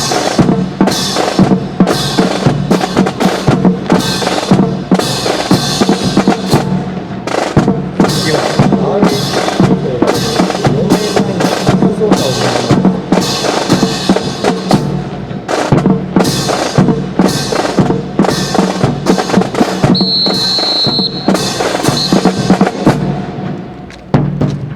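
Marching drum cadence of snare and bass drums, played steadily with rapid strikes. A short high steady tone sounds about twenty seconds in.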